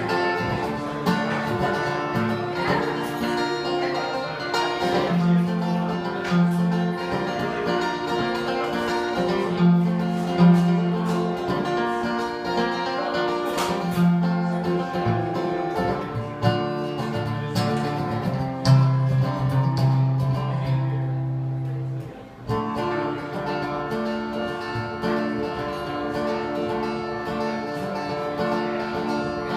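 Acoustic guitar played solo as a song's instrumental intro, with a sustained low note and a brief drop in level about three quarters of the way through before the playing picks up again.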